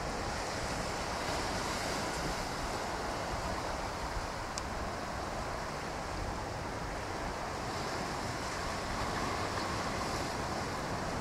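Ocean surf breaking and washing over a rocky shore, a steady rushing hiss, with some wind on the microphone.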